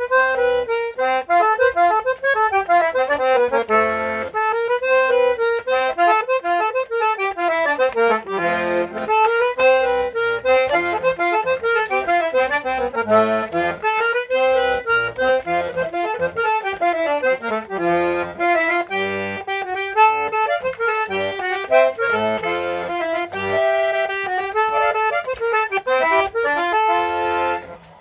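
Eight-bass button accordion (oito baixos) playing a lively forró melody, quick runs of treble notes over bass-button accompaniment.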